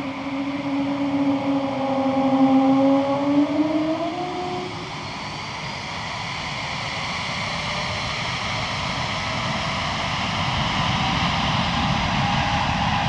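Airbus A220-100's Pratt & Whitney PW1500G geared turbofan engines whining while it taxis, the distinctive A220 engine tone rising in pitch over the first few seconds. After that it settles into a steadier jet rush.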